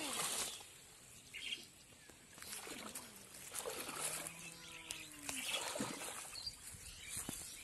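Shallow muddy pond water sloshing and splashing in short bursts as a person wades through it knee-deep, with a faint drawn-out call about halfway through.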